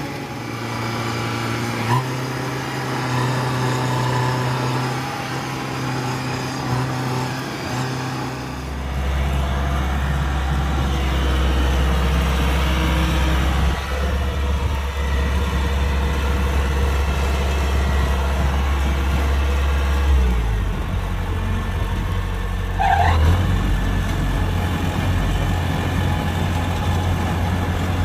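Kubota DC-105X combine harvester's diesel engine running steadily, its note deepening about 8 seconds in and shifting again about 20 seconds in. A short high squeal rises over it about 23 seconds in.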